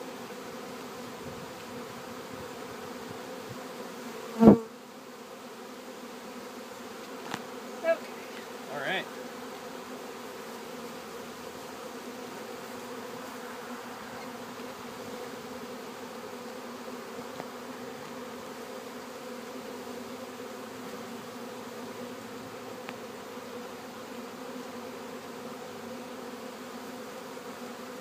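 Steady hum of many honeybees buzzing around an open hive. One loud sharp knock comes about four and a half seconds in, then a few lighter clicks and taps around eight to nine seconds in.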